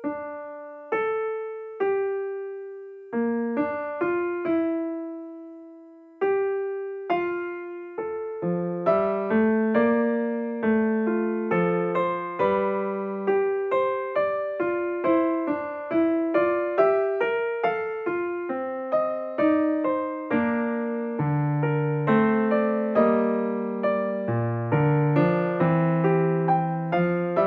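Solo piano music at a slow pace: single melody notes with pauses and one long held note at first, becoming fuller with chords and low bass notes from about eight seconds in.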